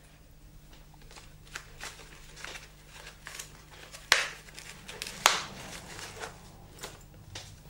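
Faint rustling and handling of a crash helmet's fabric lining as it is worked loose from inside the shell, with scattered small ticks and two sharper clicks about four and five seconds in.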